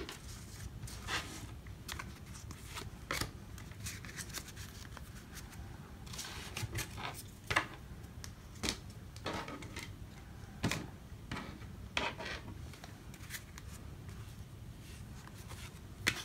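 Baseball trading cards sliding against each other as a stack is flipped through one card at a time: short, unevenly spaced swishes about once a second.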